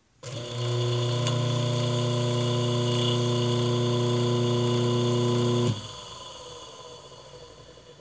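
Rewound Electrolux washing-machine motor (1/4 hp, 127 V, capacitor-run) switched on for a test run: a loud, steady electric hum for about five and a half seconds while drawing about 1.8 A, then switched off, leaving a fading whine that falls in pitch as the rotor spins down.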